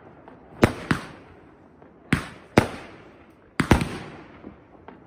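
Aerial fireworks bursting: sharp bangs that come in three pairs about a second and a half apart, each bang ringing out briefly as it fades.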